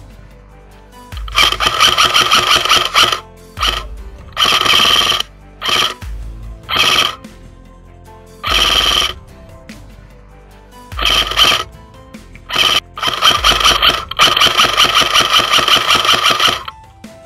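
Airsoft electric rifle (AEG) firing full-auto bursts of irregular length, some short and some held for several seconds, the gearbox cycling very fast in each burst. The longest burst comes near the end.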